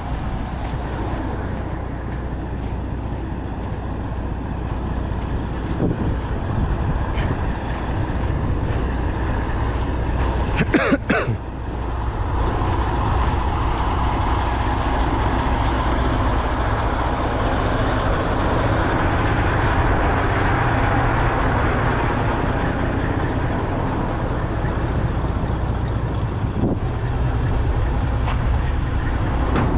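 Heavy diesel truck engine idling steadily, with a brief louder sound about eleven seconds in.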